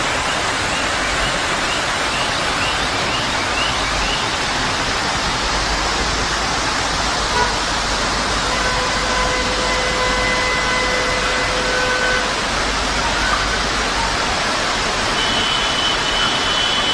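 Steady, loud rushing noise of torrential rain and floodwater pouring down a city street.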